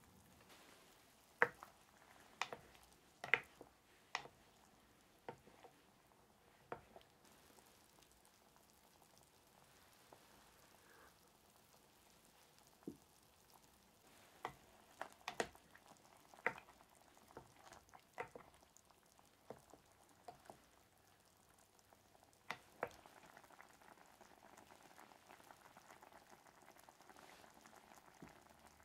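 Taro simmering in broth in an earthenware pot over charcoal. Bubbles pop as scattered sharp clicks, and after about 23 seconds a soft steady bubbling sets in.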